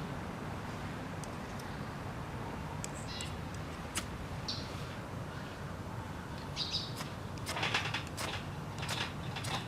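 Small birds chirping a few times, short high calls, over a steady low rumble, with a run of sharp clicks and crackles in the last two seconds.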